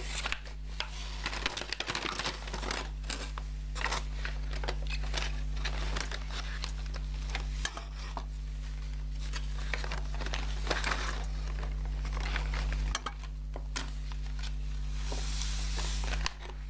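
Paper carrier bag rustling and crinkling as it is handled, with small acrylic paint tubes inside being tipped out, giving irregular light clicks and knocks throughout.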